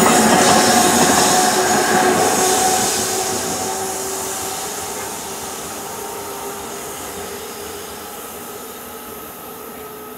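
NJ Transit electric push-pull train of Multilevel double-deck coaches rolling past and moving away: loud wheel-on-rail noise at first that fades steadily, with a faint steady whine underneath.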